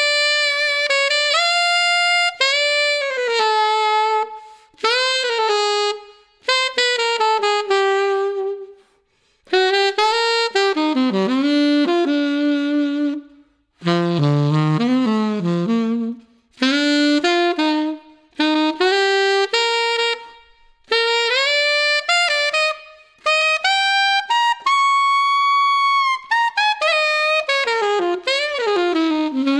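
Yanagisawa WO33 alto saxophone with a KZ bronze neck, played solo and unaccompanied in melodic phrases broken by short breaths, with notes scooped and bent into pitch. About halfway through it drops into the horn's low register, and near the end it holds one long high note.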